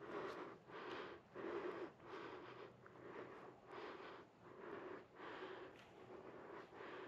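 Faint, heavy breathing of a person walking, a quick puff of breath about twice a second.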